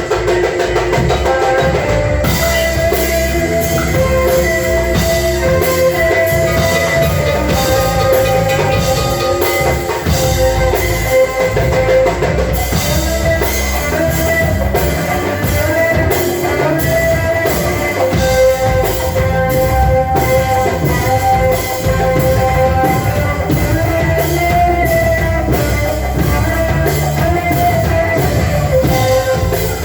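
Band music: a drum kit keeps a steady beat under a held, sustained melody, with other instruments filling in.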